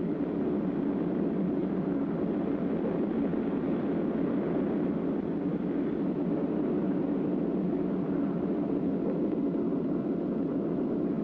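Steady mechanical drone of the Sargent missile launching station's hydraulic system as it raises the launcher boom, with no change in level or pitch.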